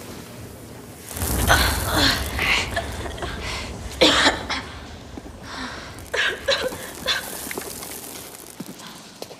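A low rumble sets in about a second in, followed by several young people coughing and gasping in thick dust.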